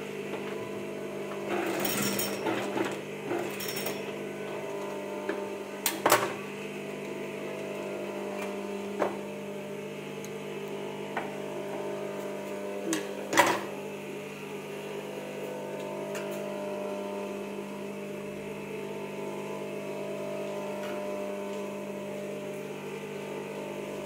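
Industrial flatbed sewing machine's motor running with a steady hum, with a few sharp clicks from handling of the machine and scissors.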